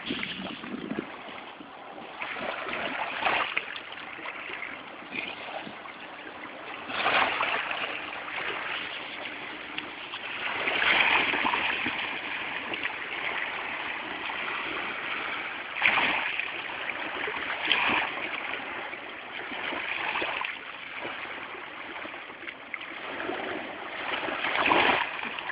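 Ocean waves breaking and washing in, a steady rush of surf that swells into louder surges every few seconds.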